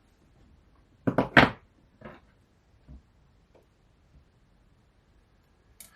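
Sharp metallic clicks of a small tool working a C-clip off the control arm of a turntable's tone arm elevator. A quick burst of several clicks comes about a second in, followed by a few fainter ticks and a last click near the end.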